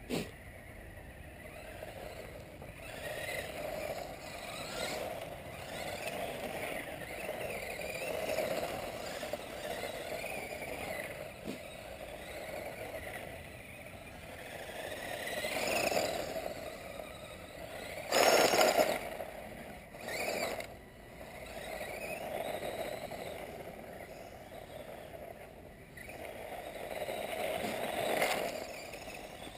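Mini Recon 1/18-scale electric RC truck driving over gravel, its motor whine rising and falling with the throttle and its tyres crunching on the stones. It swells several times and is loudest about eighteen seconds in.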